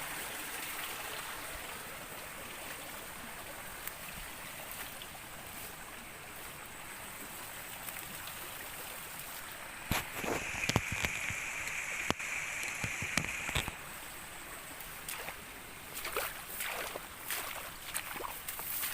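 Steady rushing of a small stream's flowing water. About ten seconds in come a few seconds of sharp knocks and handling noise over a steady high buzz, then more scattered knocks near the end.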